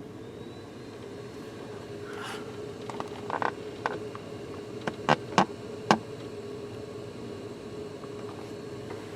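Steady hum inside a vehicle's cabin, with a handful of sharp clicks and taps about three to six seconds in.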